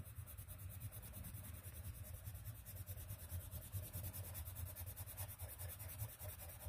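Faint scratchy strokes of a pencil lead rubbing back and forth over paper, laying down and blending oil-based coloured pencil, over a low steady hum.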